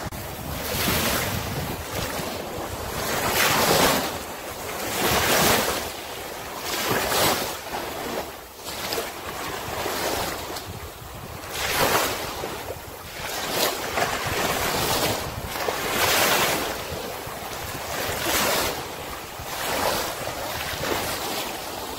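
Small waves washing up the shore, each rush swelling and fading every couple of seconds, with wind buffeting the microphone.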